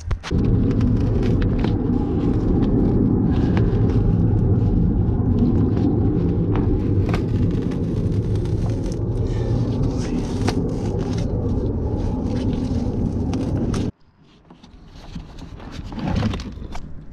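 Crackles, clicks and scrapes of a black rubbery trim or sound-deadening piece being worked loose by hand from a car floor, over a loud, steady low rumble. The rumble cuts off suddenly near the end.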